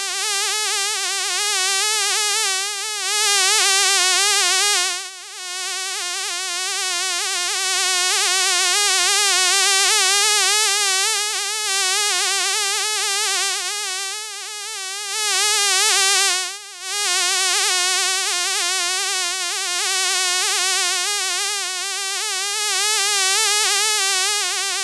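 A fly buzzing: a continuous high buzz whose pitch wavers up and down all the time and which swells and fades, dropping away briefly about five seconds in and again around seventeen seconds, then cutting off at the end.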